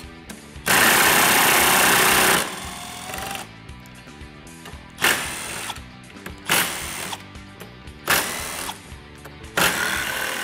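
Cordless power driver spinning out the cover bolts of a Polaris RZR 900 primary CVT clutch: one long run near the start, then four short bursts about a second and a half apart. Background music plays underneath.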